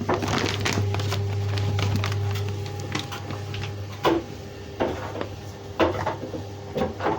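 Clothes being pushed into a front-loading washing machine drum: soft rustles and handling noises with several sharp knocks and clicks against the machine, the sharpest from about four seconds in. A steady low hum runs underneath.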